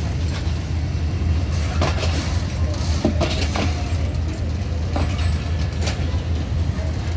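Passenger train coaches rolling past as the train departs: a steady low rumble with occasional clacks from the wheels.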